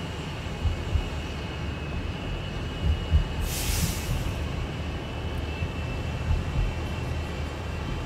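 Transit bus running with a strange engine noise, a steady high whine over a low rumble, heard through a following car. A short burst of hissing about three and a half seconds in.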